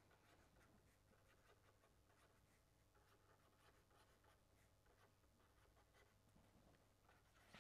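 Very faint scratching of a marker pen writing on paper in many short strokes.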